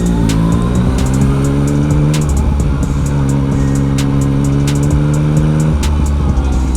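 Yamaha XSR900 inline-three engine running through a full Akrapovic exhaust while riding, pitch steady with a couple of sudden changes, under background music.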